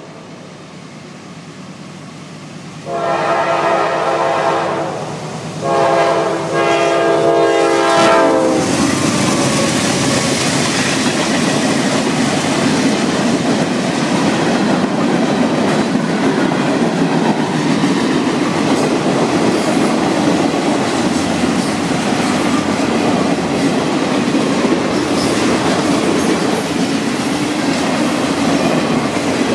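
A CSX freight train led by GE C40-8W diesel locomotives sounds its horn in two long blasts about three and six seconds in. It then passes close by, and a string of boxcars rolls past with loud steady wheel clatter on the rails.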